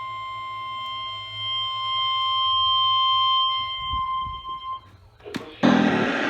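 NOAA Weather Radio warning alarm tone sounding for a weekly test, a steady single high tone that cuts off a little under five seconds in. After a short gap and a click, a loud radio hiss starts near the end.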